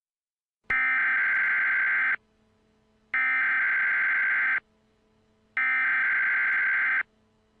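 Emergency Alert System SAME header: three bursts of digital data tones, each about a second and a half long with about a second between them. They encode the alert and mark the start of an emergency broadcast. A faint steady hum sits underneath between the bursts.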